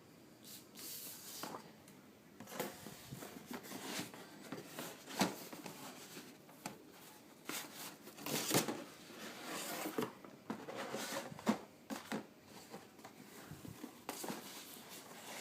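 Cardboard and plastic toy packaging being handled and opened: irregular rustling, crinkling and sharp clicks.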